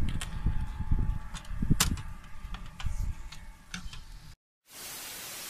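Handling noises as cloth is tucked down over the top of a barrel tandoor: scattered knocks and clicks over a low rumble. About four seconds in it cuts off, and a steady hiss follows.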